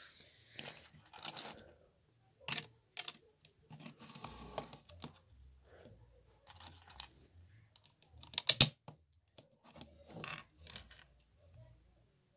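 LEGO bricks being handled and pressed together: scattered small plastic clicks and rustling, with a quick run of sharp snaps about two-thirds of the way through.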